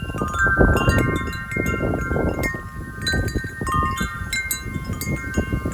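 Large harmonic metal-tube wind chime ringing continuously in strong wind, its tubes struck many times a second so that several tones ring over one another, over a low rumble of wind.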